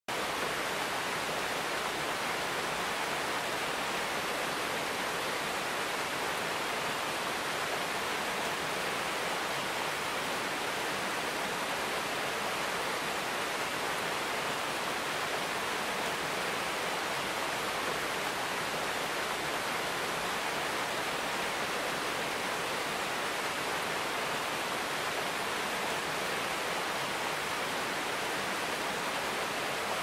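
A tall, narrow waterfall pouring down a rock face: a steady, even rush of falling water that never changes.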